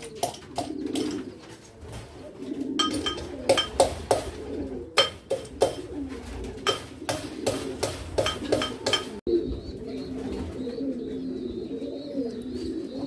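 Medicine being pounded to powder: irregular, rapid knocks of a hard utensil with a slight metallic ring, stopping abruptly about nine seconds in. Pigeons coo steadily underneath throughout.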